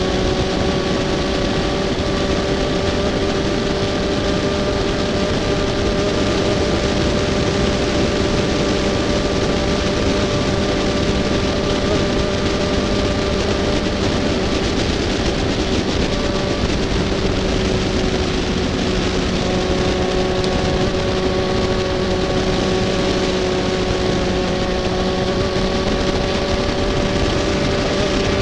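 Racing kart's 125cc two-stroke engine running at high revs, held at a nearly constant pitch with only slight dips, over a steady rush of wind noise on the onboard camera.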